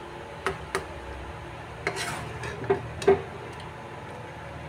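Steel serving spoon scooping thick curry out of a pan and into a glass bowl: soft scraping and several sharp clinks of metal on the pan and bowl, the loudest about three seconds in.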